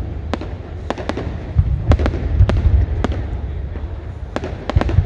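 Fireworks exploding: an irregular run of sharp cracks over a continuous deep rumble that swells and fades several times.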